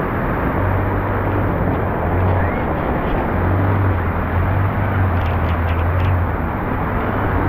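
Heavy rain and street traffic: a steady, dense hiss of rain with the low hum of vehicle engines underneath, and a few faint clicks about five seconds in.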